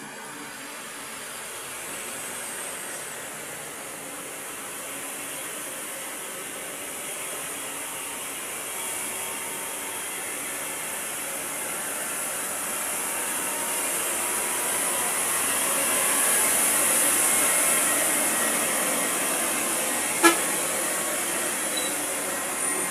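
Road traffic: trucks, cars and a bus passing with engines running and tyre noise, slowly building louder as the bus draws near. A single sharp click about twenty seconds in.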